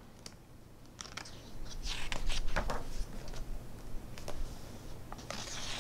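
Paper rustling as a page of a hardback cookbook is turned and smoothed flat by hand, with a few light clicks.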